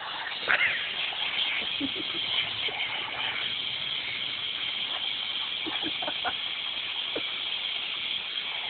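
Thin jet of water hissing steadily as it sprays from a small tap at the foot of a wall, with a dog biting into the jet. A few short, sharper sounds break over the hiss, the loudest about half a second in.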